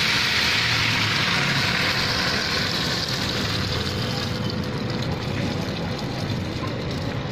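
Egg batter deep-frying in a wok of hot oil: a steady sizzling hiss, strongest for the first few seconds and easing off as the egg is rolled onto a bamboo skewer. A low rumble runs underneath.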